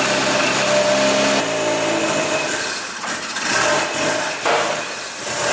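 Mazda FD RX-7's rotary engine running after an igniter swap, with a steady tone that drops in pitch about a second and a half in, then turns uneven and irregular in the second half.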